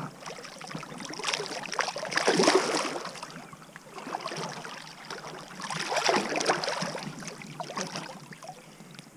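Splashing and sloshing in shallow river water around a hooked carp being landed by hand. It comes in two main surges, about two seconds in and again about six seconds in.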